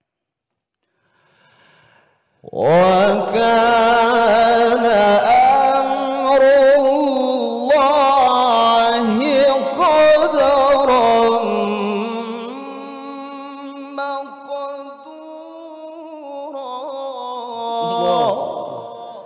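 A man reciting the Quran in the melodic tilawah style through a microphone and PA: after a pause of about two and a half seconds, one long drawn-out phrase with fast trilling ornaments, loud in its first half, then softer and steadier before it trails off near the end.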